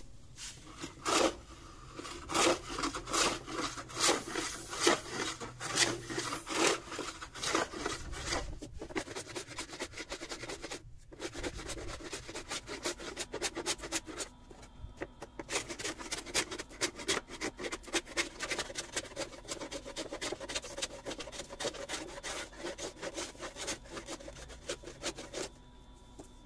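A hand tool scraping and shaving the weathered surface of old wooden planks in repeated strokes, throwing off curled chips. The strokes are slower and louder at first, stop briefly about eleven seconds in, then come quicker and denser.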